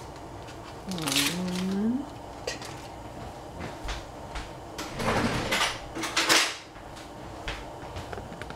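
Kitchen handling sounds: scattered clicks and knocks of kitchenware, with two longer rustling, scraping noises about five and six seconds in.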